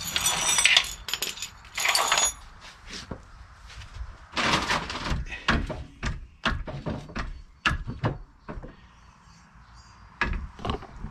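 Hydraulic trolley jack being readied and its handle fitted: irregular metal clinks, clanks and knocks, with a run of quick knocks about six to eight seconds in.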